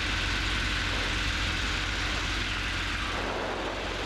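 Robin DR400 light aircraft's piston engine and propeller running steadily, heard from inside the cockpit, easing slightly in level near the end.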